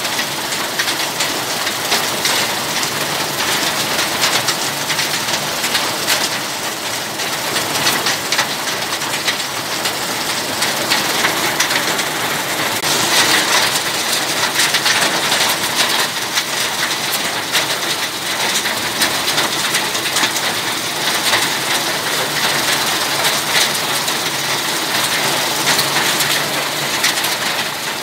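Small hailstones falling thickly onto wet concrete: a dense, steady patter of countless tiny ticks.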